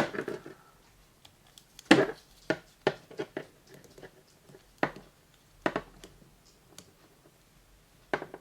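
Stiff plastic elbow joints of a Mego action figure clicking as they are bent, with handling of the figure: a string of sharp, irregular clicks. The joints are really tight.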